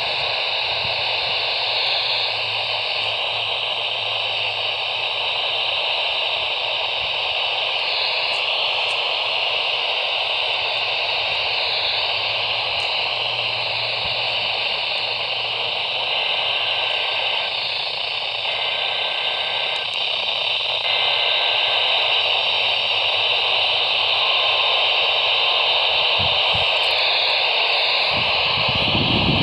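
Steady hiss of radio static from a receiver, a band of noise without speech or tones.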